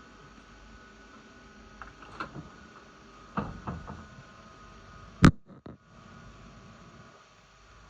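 A few light knocks, then one loud sharp click about five seconds in, over a steady electrical hum.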